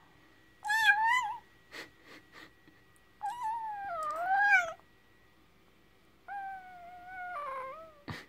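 Newborn Dogo Argentino puppy crying in three long, high, mewing squeals that waver up and down in pitch, the first short and the next two nearly two seconds each. A sharp click comes near the end.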